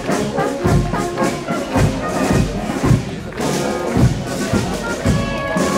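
Brass band playing a march, with a bass drum beating about twice a second under sustained brass notes.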